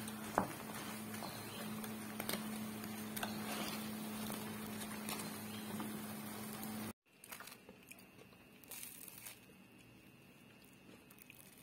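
Oil sizzling as tahu aci fritters deep-fry in a pan, with a metal spatula scraping and a sharp knock about half a second in. About seven seconds in, the sizzle cuts off and is followed by faint soft sounds of hands tearing a fried fritter apart.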